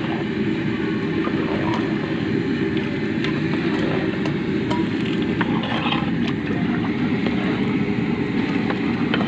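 Steady roar of a high-pressure LPG burner firing under a large cooking pot, with a few faint clicks over it.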